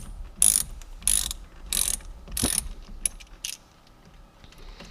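Ratchet wrench clicking in repeated short strokes, about one and a half a second, backing out the steering wheel's center bolt. The strokes fade and stop about three and a half seconds in.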